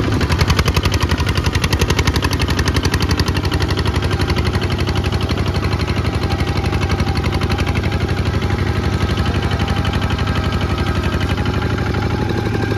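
Kubota ZT 155 single-cylinder diesel on a two-wheel walking tractor running steadily under load as it hauls a trailer up a wet sandy bank: a rapid, even chugging of single firing beats.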